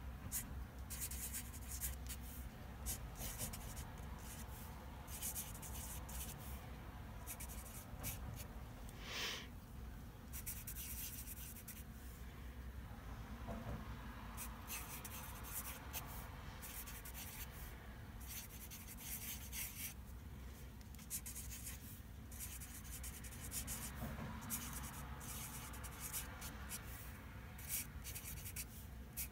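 Sharpie felt-tip marker writing on paper: a long run of short, quick scratchy strokes as words are written out, over a steady low hum.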